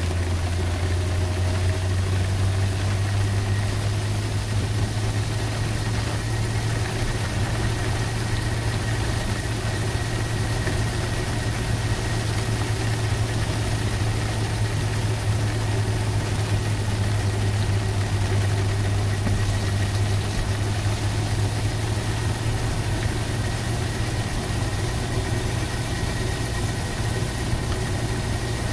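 Cabin noise inside a Better.bike PEBL pedal-electric vehicle driving on a wet road in rain: a steady low hum under an even hiss of rain and wet tyres, with a faint high whine.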